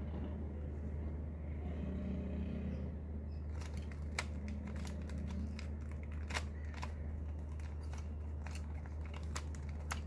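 Plastic 3x3 Rubik's Cube being twisted by hand: its layers click in an uneven series of sharp clicks starting a few seconds in, over a steady low hum.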